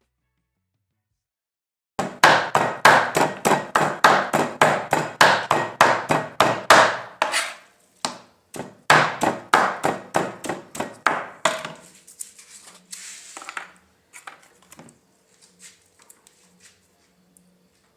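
Meat being minced by hand with a knife chopping rapidly on a cutting board, about three to four strokes a second, in two runs with a short break between them. Then come a few lighter taps and handling sounds.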